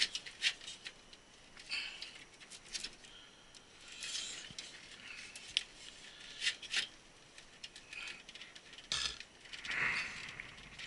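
Scattered metal clicks and short scraping rubs from a 2.5-inch hot-swap drive bay being worked loose from a server case, with a longer scrape about nine seconds in.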